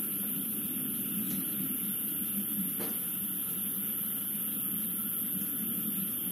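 Steady outdoor night ambience: a constant high hiss over a low hum, with one faint knock about three seconds in.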